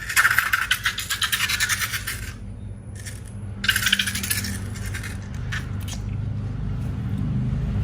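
Dense crackling, rattling scrape in two spells, the first about two seconds long and the second about a second, with a low hum rising underneath toward the end.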